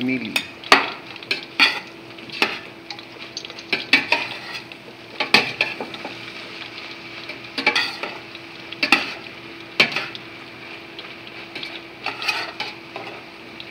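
A slotted spatula and a spoon scrape and knock against a large stainless steel pot as vermicelli noodles and macaroni are tossed together. The clinks and scrapes are irregular, about one a second.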